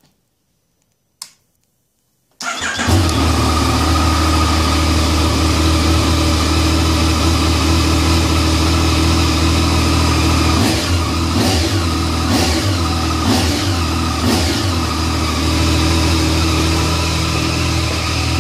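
Yamaha FJ-09's 847 cc inline three-cylinder engine cranked and started: a single click about a second in, the engine catching about two and a half seconds in and settling to a steady idle. Between about ten and fourteen seconds in it is revved briefly several times.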